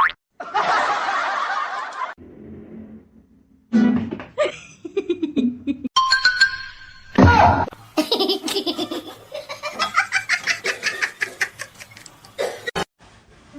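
People laughing in a quick series of short clips that cut in and out abruptly, with music.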